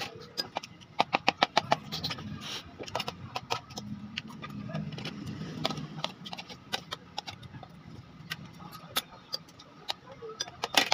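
A person chewing and smacking their lips while eating rice and meat, heard as many sharp wet clicks in quick, irregular succession. A low hum rises under it for a couple of seconds around the middle.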